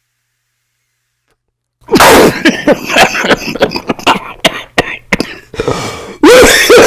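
An elderly man coughing hard after inhaling from a vape. The fit starts suddenly about two seconds in as a run of harsh, choked coughs with voiced groans between them, and flares up again loudly near the end.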